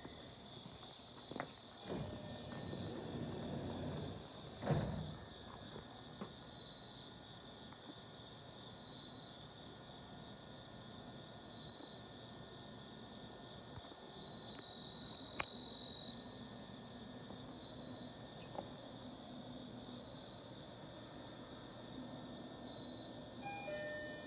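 Crickets chirping steadily in a high, even trill. In the first few seconds the E129 series electric train is heard coming to a halt at the platform, ending in a short loud hiss.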